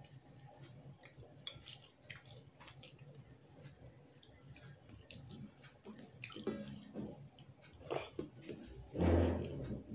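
Fingers mixing rice into thin fish curry on a steel plate, with wet squelching, small clicks and chewing of mouthfuls. Louder handling noises come about six and a half and eight seconds in, and a louder burst lasting about a second comes near the end.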